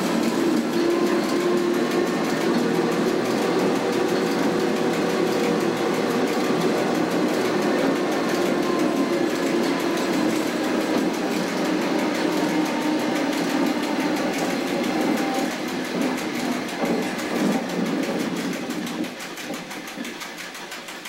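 Electric cogwheel railcar of the Zugspitze rack railway running on the track, heard from inside the cab: a steady hum of motors and rumble of running gear that quietens near the end.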